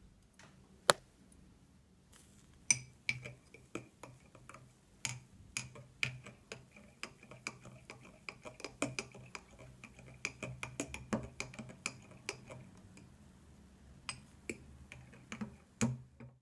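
A metal spoon clinking against a cup: a quick run of light, ringing taps over a low steady hum, fading off and coming back briefly near the end.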